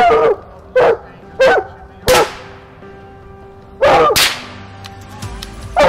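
Bluetick coonhound barking at a treed raccoon in short, repeated barks about every half second to second. Two sharp cracks of .22 rifle shots come about two seconds in and about four seconds in, each with a short echoing tail.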